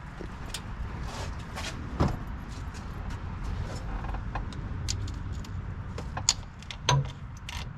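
Scattered metallic clinks and knocks of hand tools and loose metal parts being handled during an engine teardown, over a steady low rumble. The sharpest knock comes about two seconds in, with a few more near the end.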